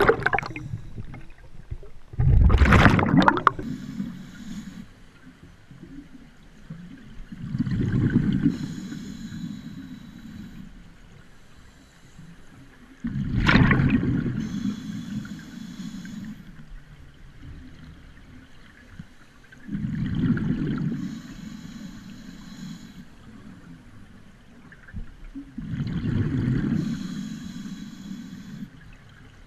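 Scuba diver breathing underwater through a regulator: each exhale a low bubbling gurgle of escaping air, followed by the hiss of the regulator on the inhale. About five breaths, one every six seconds or so.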